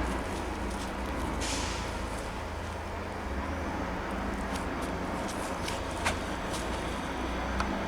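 Steady low background rumble, with a short rustle about a second and a half in and a few light clicks near the end.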